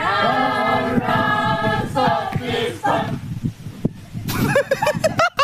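A group of young voices singing a song together in unison, then after a brief lull near the end breaking into a quick run of short, pulsing vocal calls.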